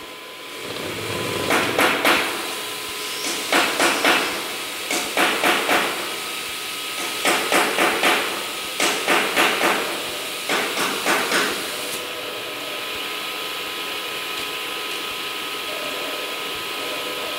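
CNC router with automatic tool changer working through a tool change and tool-length measurement. Clusters of sharp knocks and clatter come about every second and a half for roughly the first ten seconds, then only a steady machine hum with a faint whine remains.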